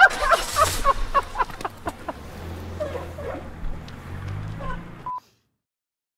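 Two men laughing hard, in quick bursts that thin out after about two seconds, over a low steady hum. The sound cuts off abruptly about five seconds in, leaving dead silence.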